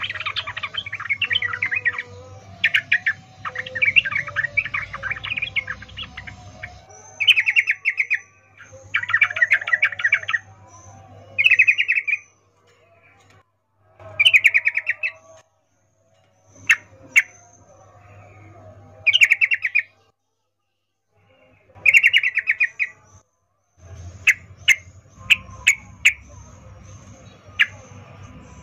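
Female trucukan (yellow-vented bulbul) giving its breeding call to draw males: bursts of rapid chattering notes about a second long, repeated every couple of seconds, with a run of short sharp notes near the end.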